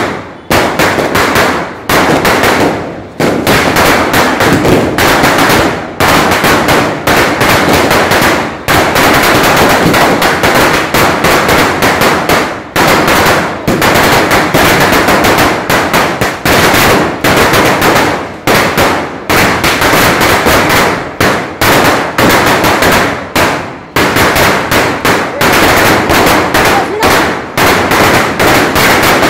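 A 5000-wala string of firecrackers bursting in a continuous rapid-fire chain of very loud cracks, with only brief dips in the rattle.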